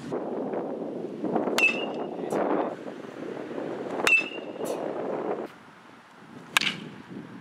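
Metal baseball bat hitting a baseball three times, about two and a half seconds apart, each a sharp ping with a short ring. A fainter knock follows each hit about half a second later.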